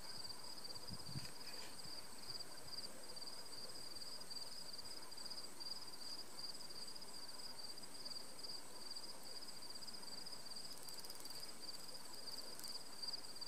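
Insects trilling: a faint, steady, high-pitched pulsing chirr that never stops.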